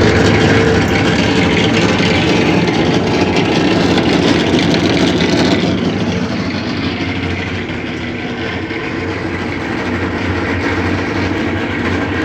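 Maytag washing machine in its spin cycle making a loud grinding noise, a steady rumble with a hum that eases slightly about halfway through. A technician took it for worn bearings.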